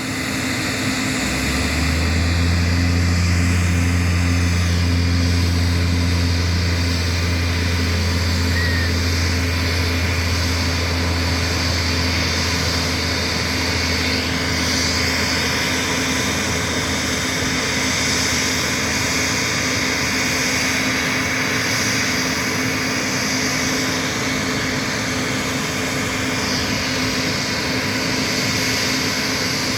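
Embraer E195-E2 airliner's Pratt & Whitney PW1900G geared turbofans running as it passes, a steady engine drone. A low hum under it fades out a little past halfway.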